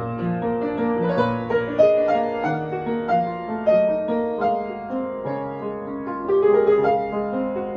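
Solo piano music, a slow melody over held notes and chords.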